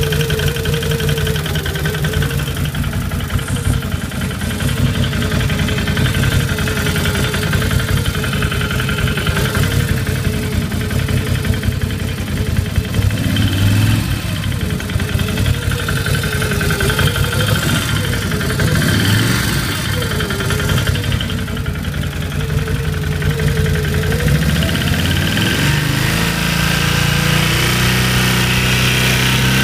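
Can-Am Renegade 800 ATV's Rotax V-twin engine idling with a knocking noise from the motor; its speed steps up near the end.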